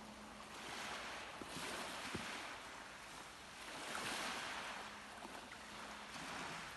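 Sea waves washing onto the shore, the surge swelling and fading about every two to three seconds.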